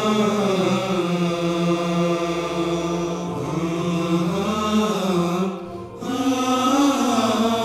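Slow vocal chant of long, held, gently gliding notes, with no beat. One phrase ends about six seconds in and the next begins at once.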